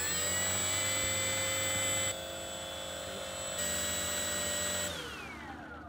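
Brushless electric motor of an RC model airplane turning its propeller on the ground: a steady whine that has just spun up. It drops in level about two seconds in and comes back up a second and a half later, then winds down with falling pitch near the end.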